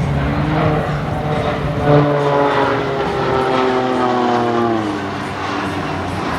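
Embraer EMB 312 Tucano turboprop aircraft flying past, their propeller drone sliding down in pitch as they pass, from about two to five seconds in.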